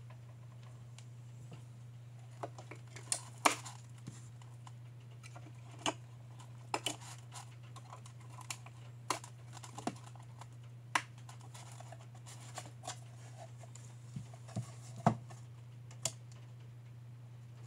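Parts of a small tabletop fountain being handled and set down: irregular clicks, taps and knocks of hard parts, two of them much louder, about three and a half seconds in and near the end, over a steady low hum.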